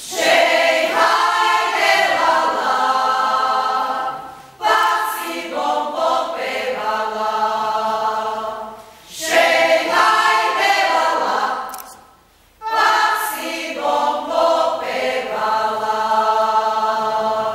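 A choir singing unaccompanied, in four long phrases with short breaks between them.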